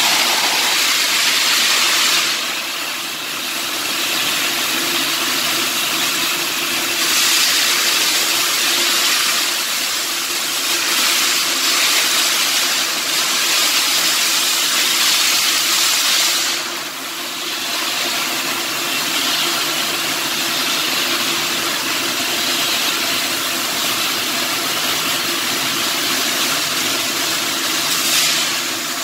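Shielded metal arc (stick) welding arc crackling and hissing steadily as the electrode burns. It briefly quietens about two and a half seconds in and again about seventeen seconds in.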